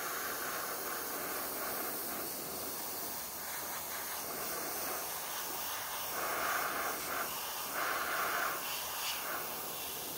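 Airbrush spraying paint: a steady hiss of air, with two louder spurts about six and eight seconds in.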